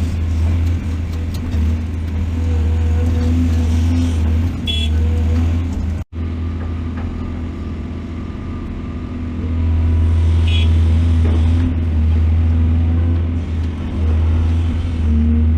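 Excavator's diesel engine running steadily under load, getting louder about two-thirds of the way through, with two brief high squeaks. The sound cuts out for an instant about six seconds in.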